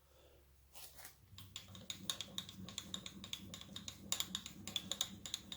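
Rapid, even mechanical clicking, several clicks a second, starting about a second and a half in: a surface grinder's table being hand-cranked to sweep a dial indicator across the magnetic chuck. A faint low hum sits under it.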